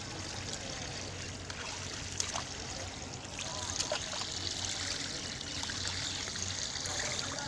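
Shallow river water running and trickling steadily, with two brief sharper sounds about two and four seconds in.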